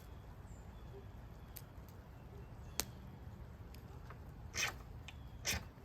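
Spine of a Swiss Army knife saw blade struck down a small ferro rod to throw sparks onto tinder. There is a sharp click near the middle, then two short rasping strikes near the end.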